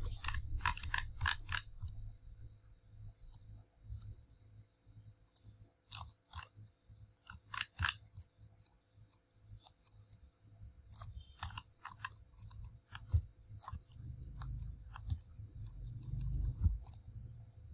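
Small clicks and crackles close to the microphone, coming in irregular bunches (four or five in quick succession at the start, more a few times later), over a low rumble.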